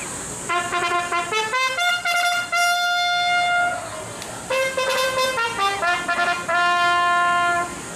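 A symphonic ensemble with brass, including a sousaphone, playing a melodic phrase of quick short notes and longer held notes.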